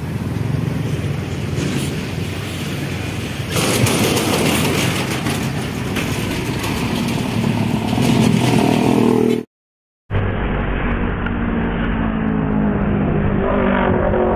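Traffic on a busy highway bridge: motor vehicles and heavy trucks passing close by, growing louder from about four seconds in with a deep rumble building before a sudden cut to silence. After the brief silence, motorcycle engines run and rev as they pass, rising in pitch near the end.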